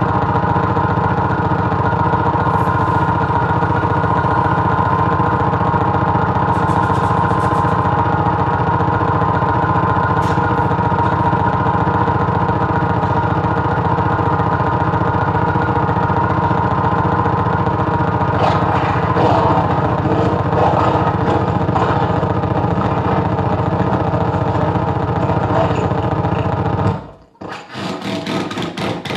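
Harsh noise-wall drone: loud, steady, heavily distorted electronic feedback with a dense engine-like buzz, run through effects pedals. It cuts off abruptly near the end, leaving quieter scattered clattering.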